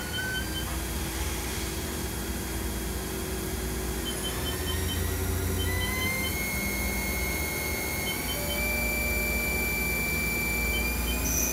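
Spindle of a 2004 Haas TM-1 CNC vertical mill running over a low hum, its whine rising in pitch in several steps as the spindle speed is raised toward its 4,000 RPM maximum.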